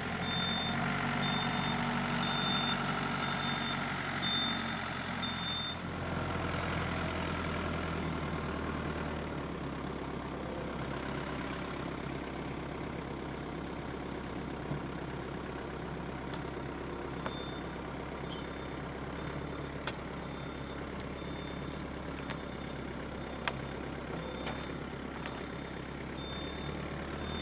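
A heavy vehicle's engine running steadily while its reversing alarm beeps at an even pace, about one beep a second. The beeping runs for the first six seconds, stops, and starts again for the last ten seconds.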